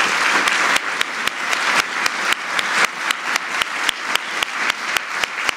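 Audience applause, dense at first and thinning as it goes on, with one person clapping close to the microphone at a steady four or so claps a second.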